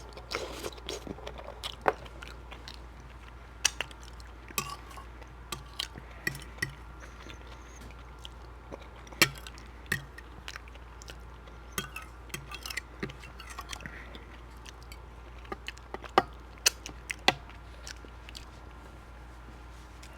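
Close-miked chewing and wet mouth sounds of a person eating creamy shrimp alfredo pasta, with many irregular sharp clicks and smacks, over a steady low hum.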